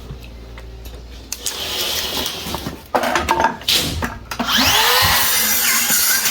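Electric power saw spinning up and cutting a piece of timber for a ceiling noggin, running loudly for the last couple of seconds, after a few knocks and handling noises.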